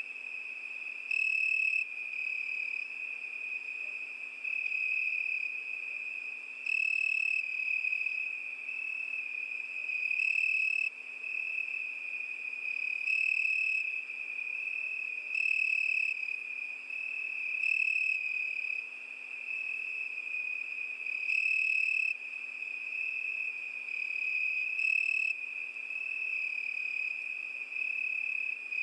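Crickets chirping: a steady high trill with louder chirps of about a second, every two to three seconds.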